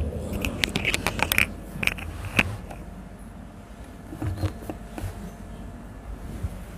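A quick run of sharp clicks and light knocks, loudest about two and a half seconds in, followed by a few soft low thumps.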